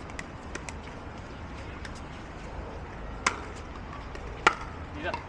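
Pickleball paddles hitting a plastic pickleball in a rally: two sharp pops about a second apart a little past the middle, then a softer knock. Fainter clicks of play come earlier, over a steady outdoor hum.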